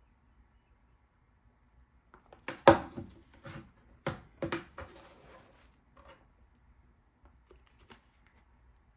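Handling noise from a clear plastic storage container and a hot glue gun: a sharp knock about two and a half seconds in, as the glue gun is set down on the wooden table, then several lighter plastic knocks and a brief rustle as the plastic desiccant basket is pressed onto the glued lid, with a few faint clicks near the end.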